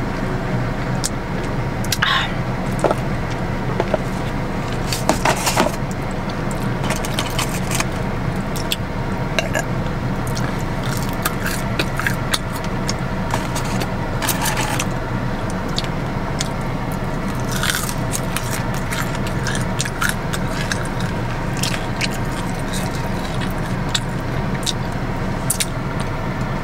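Close-miked biting and chewing of a fried chicken sandwich, with many short crisp crackles and clicks, over a steady low hum inside a car.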